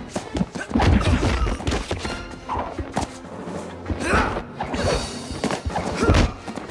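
Movie fight sound effects: a run of punches and kicks landing with sharp thuds and whacks over the action score music, the heaviest hits about a second in, around four seconds in and near the end.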